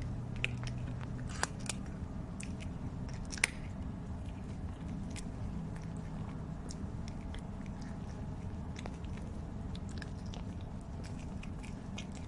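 A cat eating dry kibble, chewing with scattered short crisp clicks and crunches, the sharpest about three and a half seconds in, over a steady low background hum.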